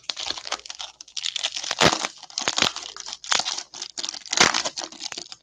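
Foil wrapper of a Bowman baseball card pack being torn open and crinkled by hand, in a series of irregular rustling, crackling bursts.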